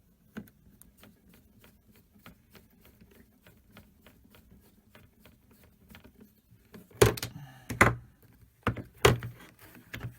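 Screwdriver working the battery-cover screw of a plastic multimeter: a run of faint, quick clicks, then several loud plastic knocks and clacks near the end as the meter case is handled and the cover fitted.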